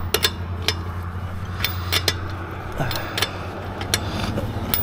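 Scattered sharp metallic clinks and knocks, about eight of them, as metal things are handled, over a steady low hum.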